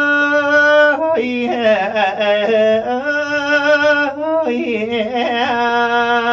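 A man singing Thai lae, a chanted folk-religious song, solo: long drawn-out notes with wavering ornaments, in phrases that begin anew about a second and about four and a half seconds in.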